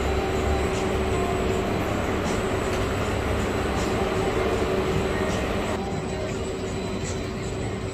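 Steady mechanical rumble with a low hum from a Ferris wheel's drive machinery running as the wheel turns.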